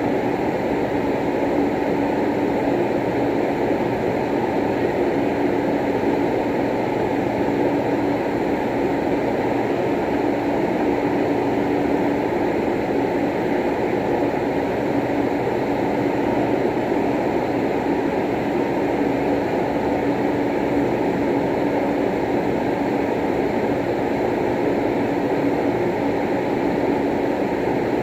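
Steady low rumbling hum with one constant tone running through it.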